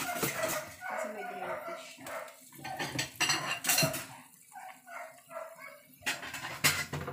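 A metal utensil clinking and knocking against a cooking pot of boiling soup, several sharp strikes, the loudest about three seconds in and again near the end. A dog makes vocal sounds in the background near the start.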